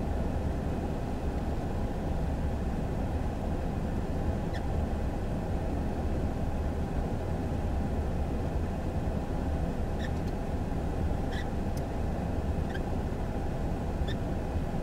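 Steady low rumble inside a parked car, with a few faint small clicks here and there in the second half.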